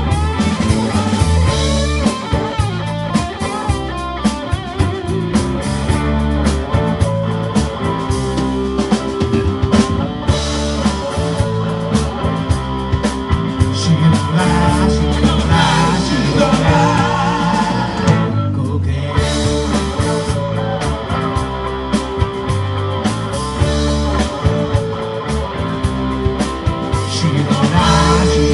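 Live rock band playing: electric guitars, bass guitar, keyboard and drums, with a lead guitar line bending over the band.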